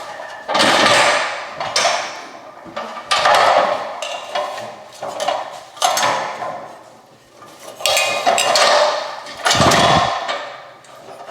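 Hard plastic scraping and knocking in about eight short, sudden bursts as a ceiling-mounted hardwired smoke detector is twisted and worked loose from its mounting.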